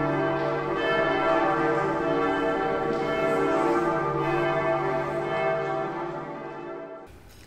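Church bells ringing, several bells sounding together, dying away and cutting off near the end.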